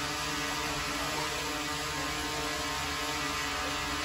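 Quadcopter drone hovering, its propellers giving a steady hum made of several steady tones.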